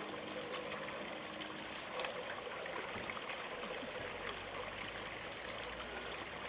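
Running water trickling steadily, like a small stream or water feature.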